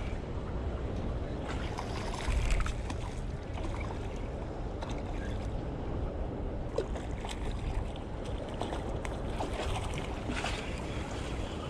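Steady wind rumbling on the microphone over water washing against jetty rocks, with a few scattered light clicks.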